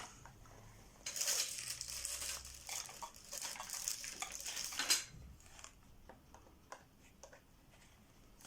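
Hard parts of a flat-pack unit being handled and pushed into place: about four seconds of rattling and scraping with many small clicks, ending in a sharper knock, then a few light clicks.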